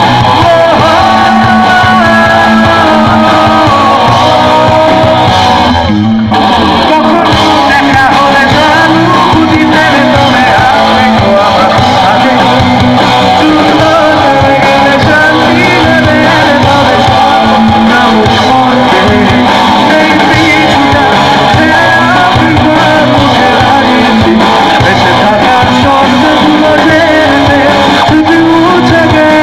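Bengali rock band playing live and loud: electric guitar, bass and drums with a singer, and a brief break in the music about six seconds in.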